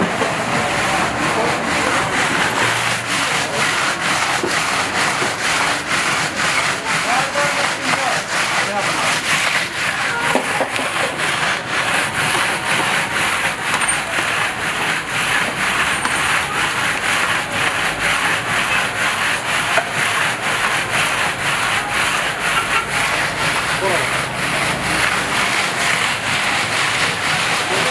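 Steel pot of sheer yakh being turned by hand in its bed of crushed ice, giving a steady grinding, rubbing scrape of metal against ice as the milk mix freezes against the pot's sides.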